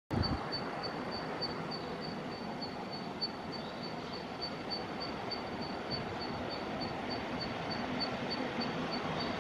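Distant JR Freight EF210 electric locomotive and container train approaching, a steady rumble that grows slightly louder. A high, thin chirp repeats about four times a second over it.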